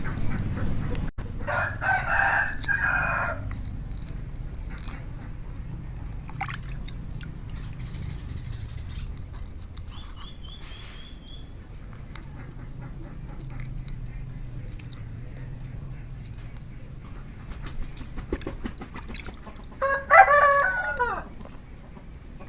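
A rooster crowing twice: one crow about two seconds in and another near the end, the second tailing off downward in pitch.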